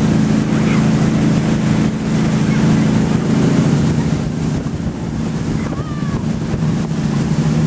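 Motorboat engine running steadily under way while towing an inflatable tube, with the rush of the churning wake and wind buffeting the microphone.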